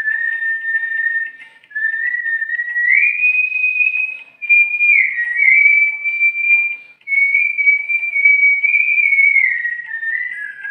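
A man whistling a song melody through pursed lips: one clear, high tone in held notes that slide from pitch to pitch, in phrases broken by three short pauses.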